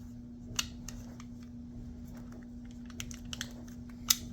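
Light metallic clicks of a Rock Island Armory .45 ACP pistol's slide and parts being fitted back onto the frame during reassembly, with a sharper click just after four seconds. A steady low hum runs underneath.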